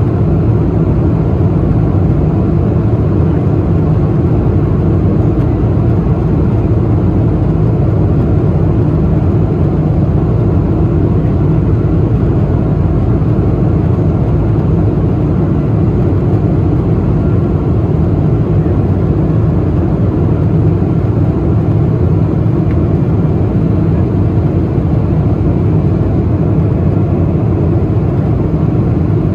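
Steady cabin noise inside a Boeing 777-200 in descent: an even rush of airflow and engine noise, heaviest in the low end, with no change in level.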